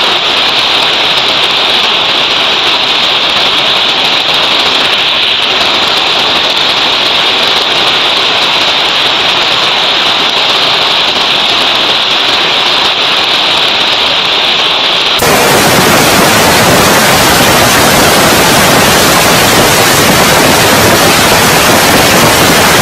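Hailstorm: hailstones and rain pelting down in a dense, steady hiss. About fifteen seconds in, it cuts abruptly to a louder, fuller downpour.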